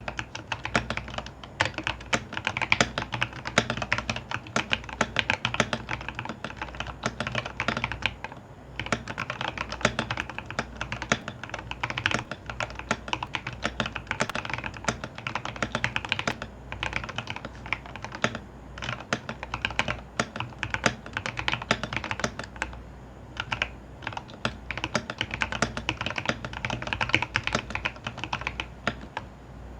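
Fast, continuous typing on an Epomaker TH80 mechanical keyboard with its stock Gateron Yellow linear switches, broken by a few short pauses.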